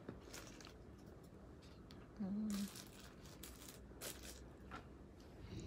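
Faint rustling and light knocks of items being handled and moved about, with a short hummed "mm" from a woman about two seconds in.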